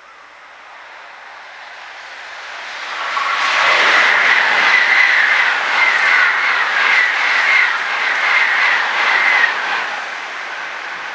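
Shinkansen 300 series train passing at speed: a rushing sound swells up, holds loud for about six seconds with a high steady whine and a regular clatter of wheels over the rail joints, then falls away as the last car clears.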